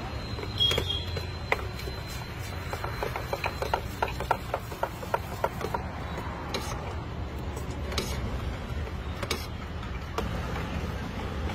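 A ladle stirring thick dosa batter in a steel bowl, clicking and scraping against the metal, with a run of quick taps in the first half and a few single clicks later, over a steady low background rumble.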